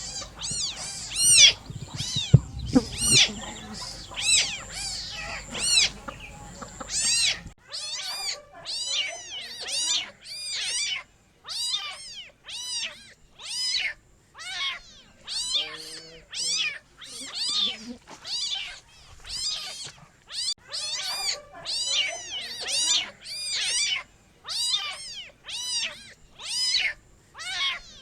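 Kitten meowing over and over: short, high-pitched calls that rise and fall, following each other quickly at about two a second.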